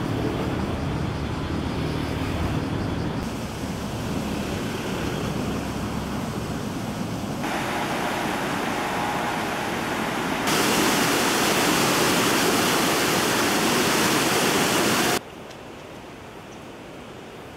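The Uji River rushing in white water over rapids, a loud, steady hiss of fast-flowing water that brightens and grows louder partway through. It cuts off abruptly a couple of seconds before the end, leaving a much quieter background. Before it there is a lower, duller rumble.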